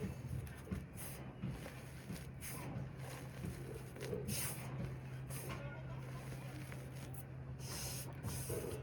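Reformed cornstarch slab being squeezed and crushed, giving irregular short squeaky crunches over a steady low hum.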